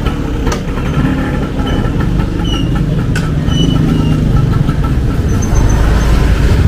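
Motor vehicle engine running in street traffic, growing louder about halfway through, with a couple of sharp clicks and a few short high chirps.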